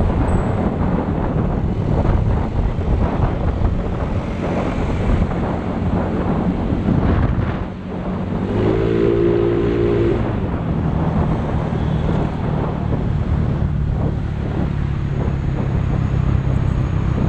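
Yamaha Mio scooter's single-cylinder four-stroke engine, bored to 160cc, running under way through a ReplicaPro 'Silent Killer' straight-cut aftermarket exhaust, with wind buffeting the microphone. The engine note eases briefly about eight seconds in, then picks up again.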